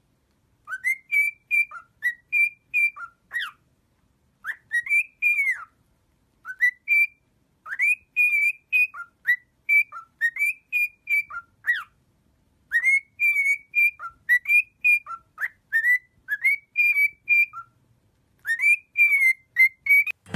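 Lutino cockatiel whistling a tune: about six phrases of clear whistled notes that rise and dip in pitch, separated by short pauses.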